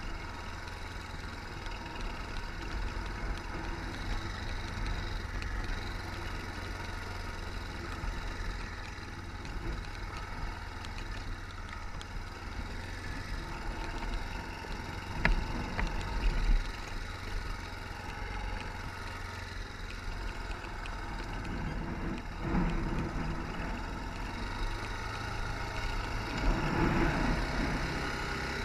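ATV engine running steadily at low revs, with two sharp knocks about halfway through and a short rise in level near the end.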